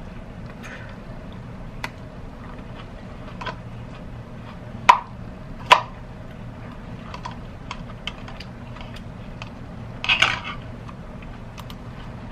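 Light clicks and knocks of small hard objects being handled, with two sharper clicks near the middle and a short rattle near the end, over a steady low hum.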